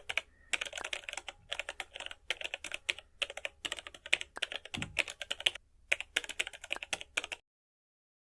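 Rapid runs of light, sharp clicks and clacks in quick clusters, cutting off abruptly near the end.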